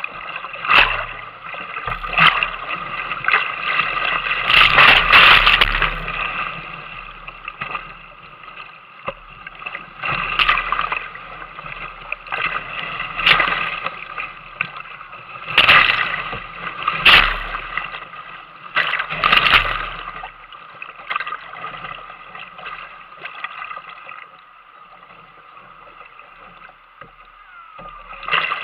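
Whitewater rushing and splashing around a kayak running a rapid. Surges of splashing come every second or two, loudest around five seconds in. The water goes calmer for several seconds near the end, then picks up again.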